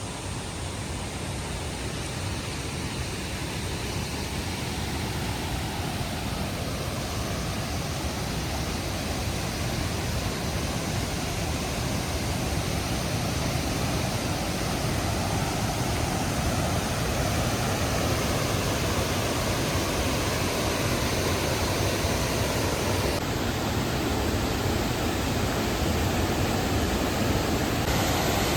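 River water rushing in a steady stream of noise that grows gradually louder.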